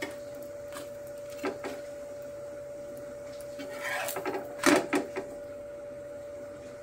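Metal spatula tapping and scraping on an iron tawa as a paratha is lifted and turned, with a few light clicks early and louder clatter about four to five seconds in. A steady high hum runs underneath.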